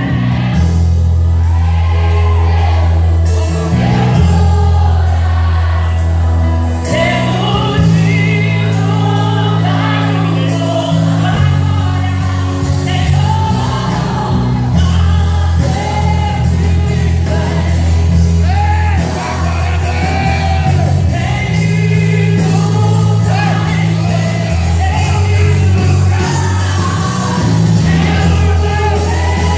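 Christian worship song in Portuguese: a singer's voice carries the melody over band accompaniment, with long sustained bass notes underneath.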